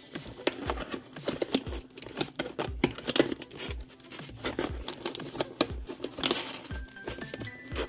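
A cardboard box being opened by hand: its flaps rustle and scrape, with irregular crinkling and tearing of the packaging.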